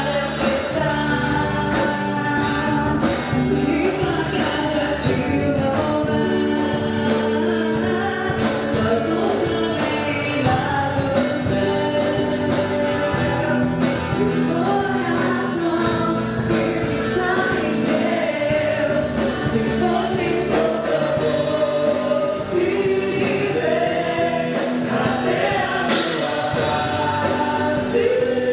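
Gospel song with a choir of men and women singing over a band.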